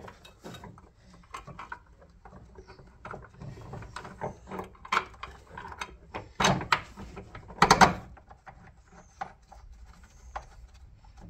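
Metal parts clicking, knocking and scraping as a new rear shock absorber and coil spring assembly is worked into place on a car's suspension, with two louder bursts of clatter about six and a half and eight seconds in.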